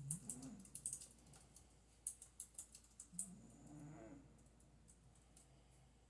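Domestic cat snoring softly: two low, wavering snoring breaths about three and a half seconds apart. A run of quick, faint clicks sounds through the first half.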